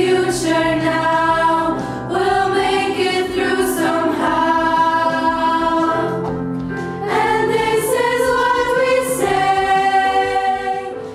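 A choir of teenage girls singing a melody together in long held phrases, with short breaths between phrases.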